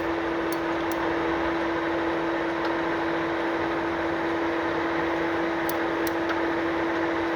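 Lansing 20-inch by 160-inch engine lathe (Model G-20) running steadily under power: an even mechanical hum with one strong steady tone, and a few faint clicks.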